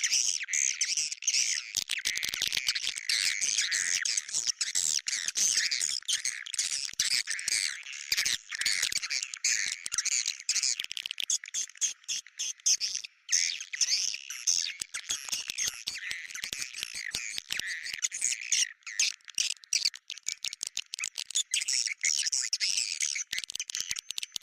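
Swiftlet calls: dense, continuous high twittering and chirping from many birds at once. This is a lure recording of the kind played to draw swiftlets to a nesting house.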